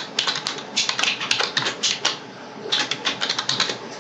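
Computer keyboard being typed on in two quick runs of keystrokes, with a short pause a little past halfway.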